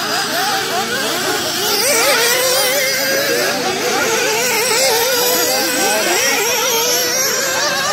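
Several small radio-controlled off-road cars running around a dirt track, their high-revving motors rising and falling in pitch over one another as the throttles are worked.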